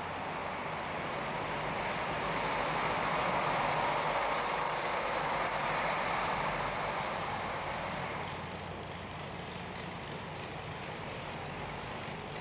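A vehicle passing on a city street: its noise swells over a few seconds and then fades away, over a steady low city hum.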